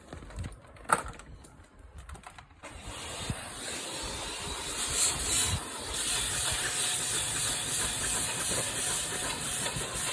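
Vacuum cleaner switched on about three seconds in, its motor spinning up to a steady hiss of rushing air as it hoovers the car's floor mats. A few light handling knocks come before it.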